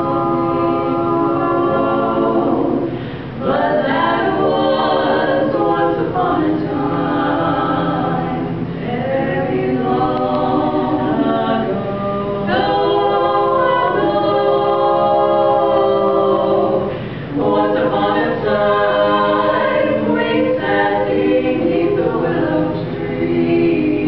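Women's vocal quartet singing a cappella in close four-part harmony, holding chords in long phrases, with short breaths about three seconds in and again about seventeen seconds in.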